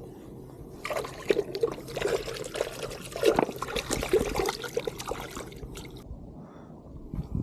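Water splashing and sloshing in quick, irregular bursts, stopping abruptly about six seconds in.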